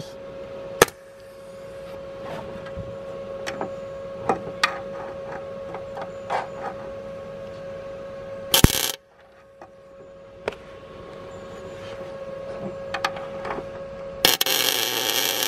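MIG welder tack-welding a seized-out captive engine-mount nut into a car's chassis rail: a brief crackling burst of arc a little past halfway and a longer one of about a second near the end. Between them come small metallic clicks and knocks of the clamp and nut being positioned, over a steady hum.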